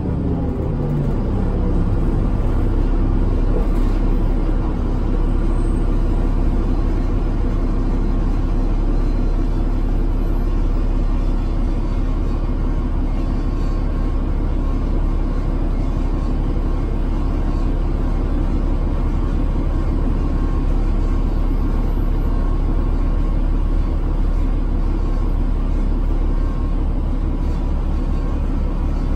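New Flyer D40LF transit bus with a Cummins ISL280 diesel engine and ZF Ecomat automatic transmission, heard from inside the passenger cabin while driving: a steady engine and drivetrain drone over road noise. Its pitch falls during the first second, then holds steady.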